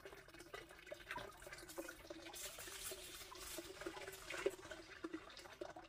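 Faint small clicks and rustles of wire leads being touched to a 9-volt battery's terminals, over a faint steady background sound.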